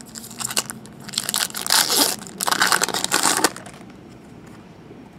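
Crinkling and crushing of a trading-card pack wrapper while cards are handled during a box break, loudest in a run of crackling from about one to three and a half seconds in.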